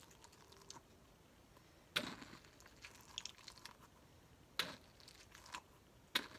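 Mesh-covered squishy stress ball filled with little gel beads being squeezed in the hand, giving three short squishes, about two seconds in, halfway through and near the end, with fainter ones between.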